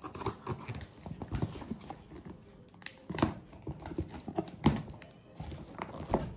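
A cardboard shipping box being cut open: a blade slitting packing tape, tape peeled back and the cardboard flaps pulled open, with irregular scrapes, rustles and taps and a few sharp knocks of the cardboard in the second half.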